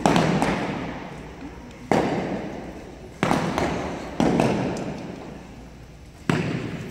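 Archery shots from youth bows: about six sharp thwacks of bowstrings releasing and arrows striking the target butts, at uneven intervals, each echoing for a second or more in the hall.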